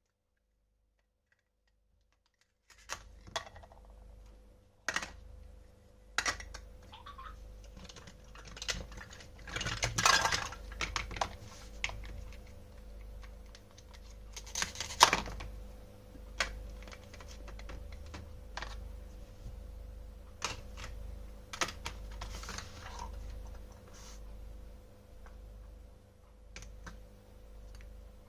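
Near silence, then from about three seconds in, irregular light clicks, taps and scrapes of toy kitchen pieces being handled, over a faint steady hum. The longest and loudest scrapes come about ten and fifteen seconds in.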